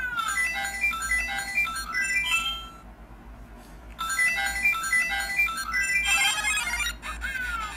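The LEGO Super Mario interactive figure's built-in speaker playing electronic game-style beep tunes in two short phrases with a pause between them, with a falling whistle-like glide at the start and another near the end.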